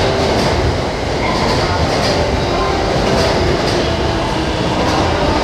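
E531 series electric commuter train pulling into the platform, running steadily with a rumble of wheels on rail and light clacks over the rail joints.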